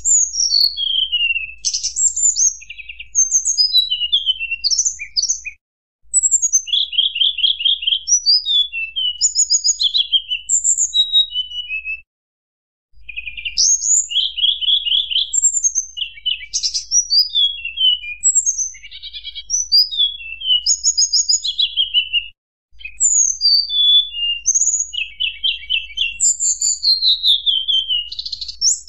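Tledekan gunung singing a fast run of clear, flute-like whistles, many sliding downward, mixed with quick rattling trills, phrase after phrase with three brief silent breaks.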